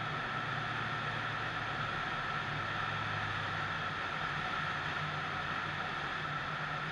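Light aircraft in flight: a steady rush of wind and propeller noise with a low engine hum underneath.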